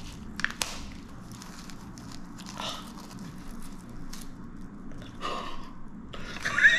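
Gloved hands handling a potted cactus in a plastic nursery pot on kraft paper: soft rustling with scattered small clicks and crinkles. A short wavering high-pitched tone comes near the end.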